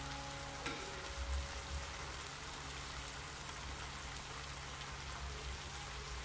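Chicken stew in tomato sauce simmering in a frying pan: a steady sizzle.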